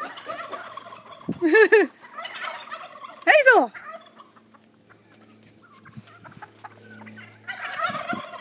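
Farmyard poultry calling: a short warbling call about one and a half seconds in, and a longer run of warbling chatter near the end.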